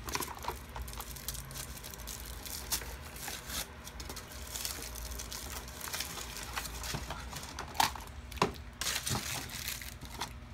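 Plastic packaging crinkling with irregular clicks and snaps as a giant plastic surprise egg is worked open, a few louder snaps coming about eight to nine seconds in.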